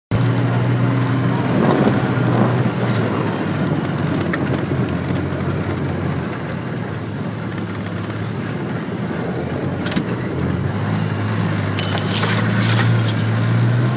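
ATV engine running steadily while riding a dirt trail, its pitch sagging in the middle and climbing again near the end. A sharp click about ten seconds in and rattles a couple of seconds later come from the machine going over bumps.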